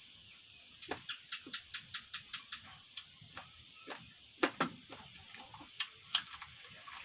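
Close-up eating sounds: a quick run of wet clicks from chewing and lip-smacking about a second in, then scattered single smacks.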